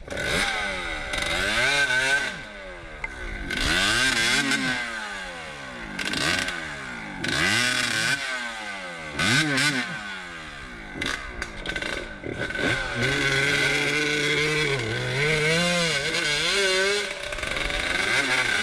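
Dirt bike engine revved up and down again and again, a burst every second or two, as the bike is worked free of deep mud; in the last few seconds it holds a steadier pitch.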